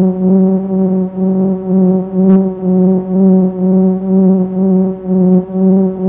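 Music: a single low droning tone with its overtones, held at one pitch and pulsing in loudness about twice a second, with a brief high sound a little over two seconds in.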